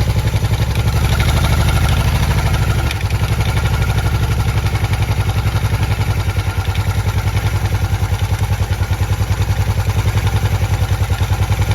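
Motorcycle engine idling with a steady, even pulsing beat.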